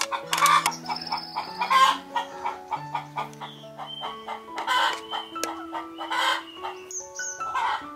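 Chickens clucking in several short loud calls, spaced a second or two apart, over soft instrumental background music of long held notes.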